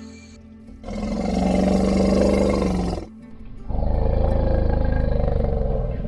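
Elephant roaring twice: two long, loud calls of about two seconds each, the second starting just after the first breaks off.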